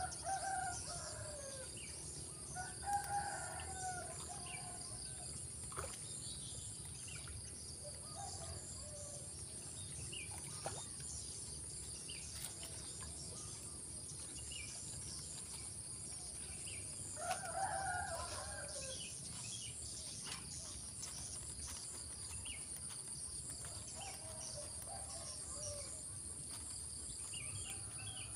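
A rooster crowing and chickens calling now and then, five or six short calls spread through the stretch, the clearest about halfway through. Beneath them runs a steady high insect drone.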